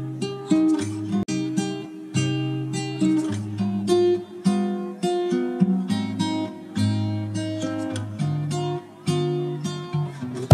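Background music: acoustic guitar playing a plucked melody over held low notes.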